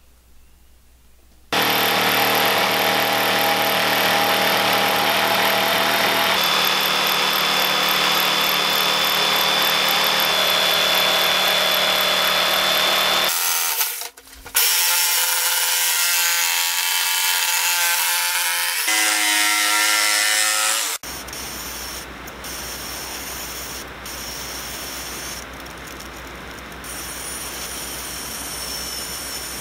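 Corded jigsaw cutting through sassafras boards, its motor running steadily under load. The cutting starts about a second and a half in, stops briefly near 13 seconds, then goes on. From about 21 seconds it is quieter and more distant.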